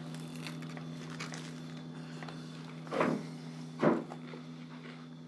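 A steady low hum, with two thumps about a second apart a few seconds in as a person gets up from a table and steps away.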